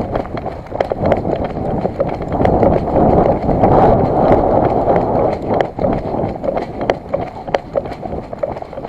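Footsteps of a player running or moving quickly in airsoft gear, with clothing and kit rustling and knocking close to the microphone.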